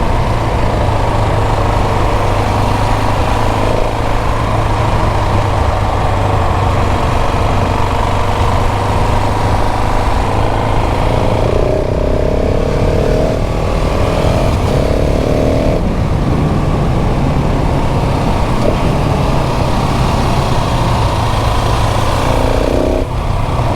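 KTM 690 SMC R supermoto's single-cylinder LC4 engine running steadily under way. Around the middle, and again near the end, the engine note changes pitch in short steps.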